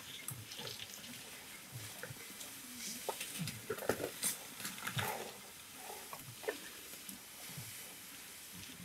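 A young elephant scuffing its feet and trunk on a dry dirt track: faint, irregular scrapes and crackles.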